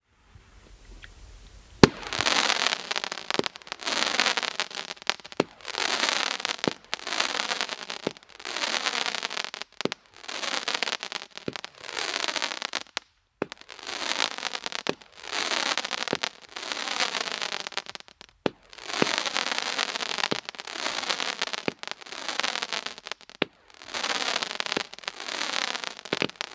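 Mighty Cobra 200-gram-style fireworks cake firing silver crackling comets in steady succession, about one shot every second and a quarter. Each shot is a sharp launch thump followed by about a second of dense crackling as the comet climbs. The shots begin about two seconds in.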